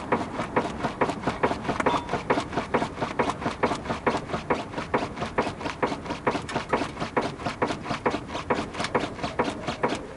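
Rapid, even knocking from the steering of a 2008 Mitsubishi Lancer, about four to five knocks a second, stopping right at the end. The owner suspects a worn steering rack, since new tie-rod ends, lower arms and stabiliser links have not cured it.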